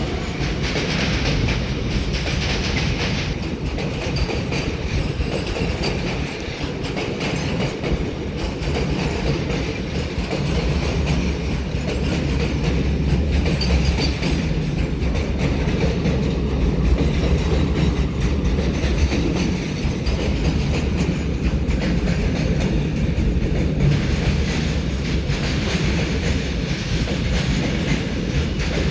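Long freight train of container flat wagons rolling past, the steel wheels running on the rails with a steady, continuous rumble.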